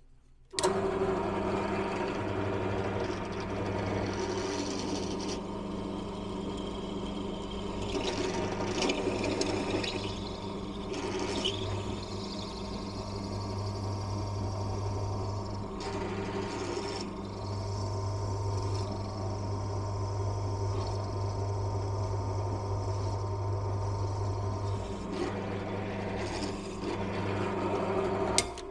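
Benchtop pillar drill switched on and running with a steady hum while it drills holes through a metal plate, the cutting growing rougher now and then as the bit goes through. It starts about half a second in and stops near the end.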